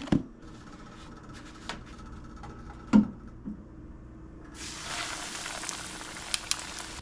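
A breaded shark fillet is laid into hot oil in a cast iron skillet and starts sizzling about two-thirds of the way in, with a couple of sharp clicks of the tongs. Before that, a single dull knock about three seconds in.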